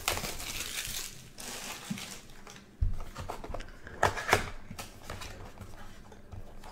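Plastic wrapper crinkling as it is torn off a Bowman's Best trading-card mini box, followed by a few sharp knocks and rustles as the cardboard box flap is opened.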